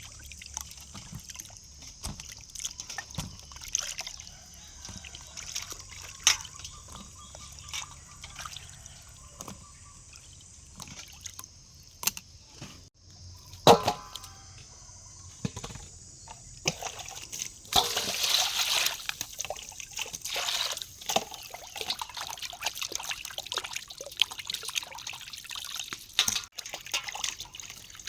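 Water trickling, dripping and splashing, with many small knocks and one loud ringing clink about 14 seconds in. A longer spell of splashing water comes at around 18 seconds.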